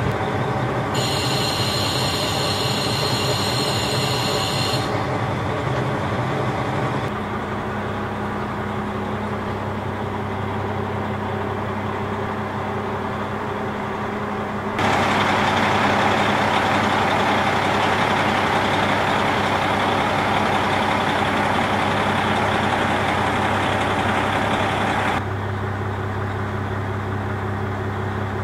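KiHa 40 diesel railcar's engine idling steadily with the car standing at a station. The level steps up and down at a few cuts and is loudest in the middle stretch. A high-pitched ringing sound is heard for about four seconds near the start.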